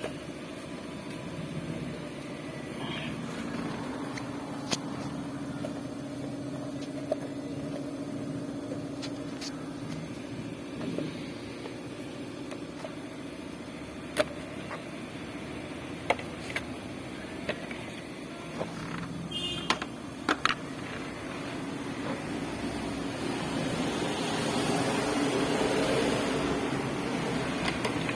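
A steady mechanical hum runs under scattered sharp clinks of hand tools on metal while spark plugs are worked on. The hum swells and grows noisier toward the end.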